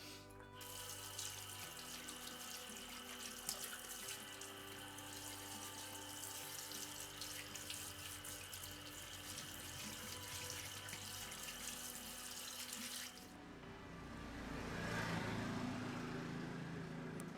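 Tap water running, as when washing parts in a sink. The sound changes about 13 s in to a lower rush that swells and then cuts off just before the end.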